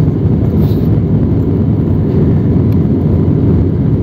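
Cabin noise of an Airbus A320-family jet on its takeoff roll: a loud, steady low noise from the engines at takeoff power.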